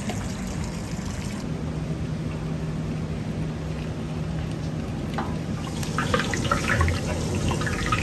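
Lor mee gravy cooking in a large steel stockpot: liquid bubbling and being poured in, over a steady low hum. From about five seconds in, a wooden paddle clatters and scrapes against the pot as the gravy is stirred.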